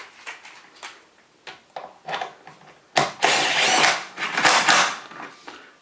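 A few light clicks as the motor's 13mm mounting bolt is fitted. About three seconds in, a power tool, most likely an impact driver, starts abruptly and runs for about two seconds, driving the bolt home.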